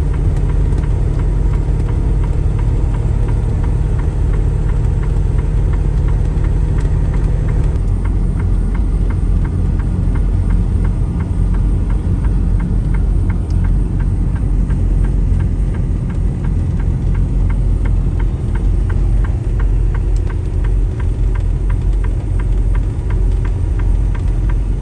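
Semi truck's diesel engine running at low road speed, heard inside the cab as a steady low rumble. About eight seconds in, the engine note shifts and a light, evenly spaced ticking comes in.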